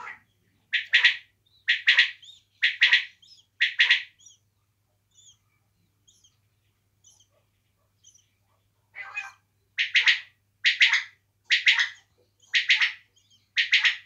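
Caged quail calling: a run of four loud, sharp calls about a second apart, a pause with only a few soft notes, then five more calls at the same pace.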